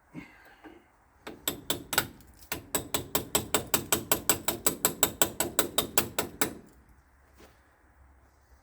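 Ratchet wrench clicking in a quick, even run of about five clicks a second for roughly five seconds, working a battery cable terminal nut.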